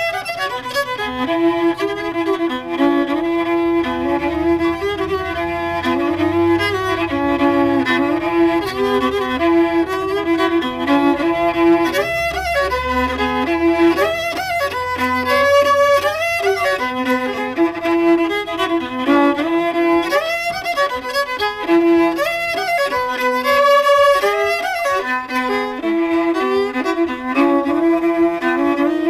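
Old-time fiddle playing a bowed tune, the melody moving above a low note that keeps recurring.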